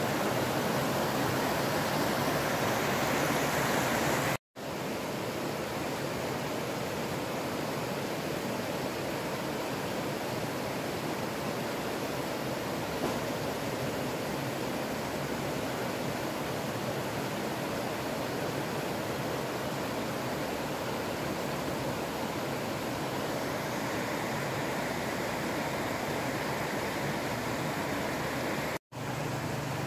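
Shallow rocky river rushing and splashing over stones in a steady, even rush. The sound cuts out for an instant twice, about four seconds in and near the end.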